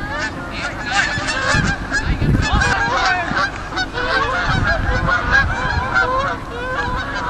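A flock of geese honking, many short calls overlapping throughout, over wind rumbling on the microphone.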